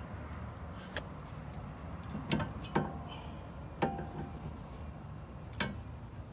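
A handful of sharp metallic clinks and knocks from hand tools and brake caliper parts being handled, five in all, one ringing briefly, over a steady low rumble.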